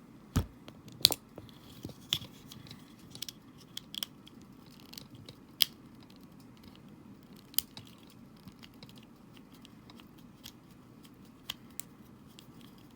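Small screwdriver and plastic parts of a Joy-Con controller clicking and ticking while a small guard is unscrewed and worked loose. Scattered sharp clicks, the loudest about a second in, with a few more spaced out over several seconds.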